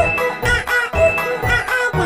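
Children's nursery-rhyme song music with a steady beat.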